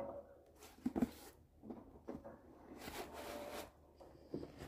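Handling noises as a paperback book is worked under the front of a desk leg: scattered light knocks and rustling, the sharpest about a second in.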